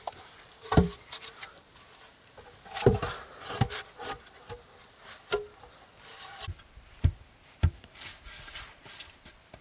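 Wood being handled: about six irregular sharp wooden knocks, with scraping and rubbing between them.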